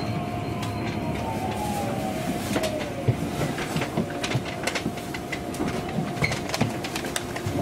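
Electric commuter train running slowly, its wheels clicking over rail joints and points. A motor whine falls in pitch over the first three seconds as the train slows.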